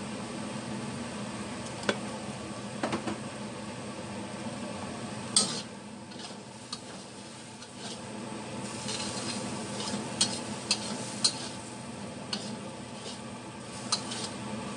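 Spatula stirring and scraping stir-fried enoki mushrooms and egg in a frying pan, with food sizzling over a steady low hum and about a dozen sharp clinks of the spatula against the pan.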